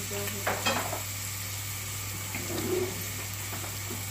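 Chopped onions frying gently in oil in a stainless steel pot, a faint sizzle over a steady low hum, with a couple of short clicks about half a second in.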